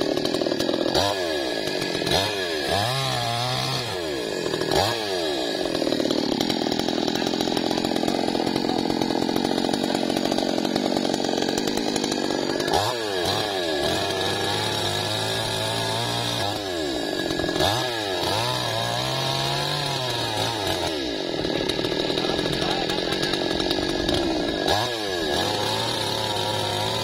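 Two-stroke chainsaw engine revving up and down over and over, with a long steady stretch at full speed from about six to twelve seconds in, as while cutting through the tree.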